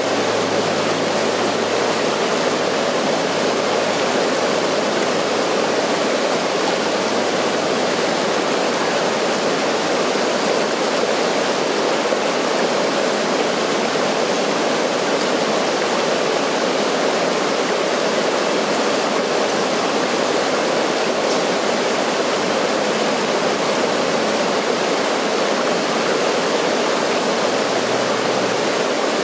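Steady rush of river water pouring over and below a dam, an even, unbroken sound at a constant level.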